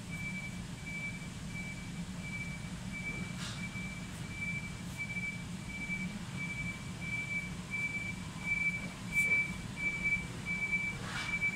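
An electronic warning beeper giving one short high beep about one and a half times a second, at an even pitch and pace throughout, over a low steady hum.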